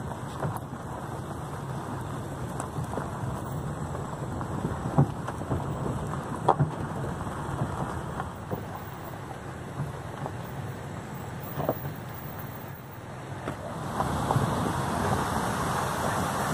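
Vehicle driving slowly on a rough dirt road: a steady rumble with scattered knocks and rattles from bumps, getting louder about two seconds before the end.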